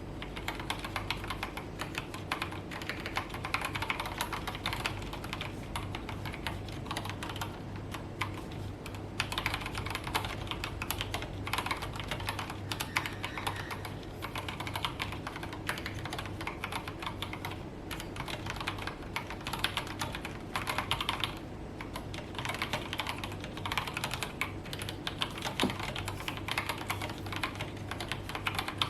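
Akko 3108 mechanical keyboard with stock yellow Gateron linear switches and OSA-profile doubleshot keycaps being typed on continuously: a dense, unbroken clatter of keystrokes.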